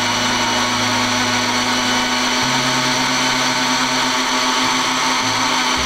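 Countertop electric blender running steadily on its shake setting, blending milk, vanilla ice cream and fruit into a milkshake.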